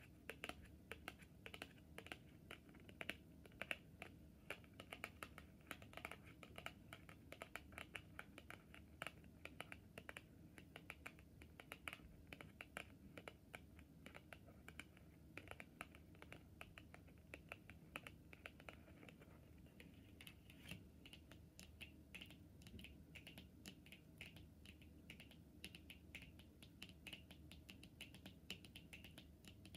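Long natural fingernails tapping on tarot cards: a faint, dense, uneven run of light clicks.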